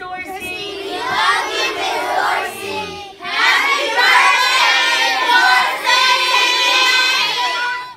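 A roomful of children shouting and cheering together. About three seconds in it cuts to another group of children singing loudly in unison, with long held notes.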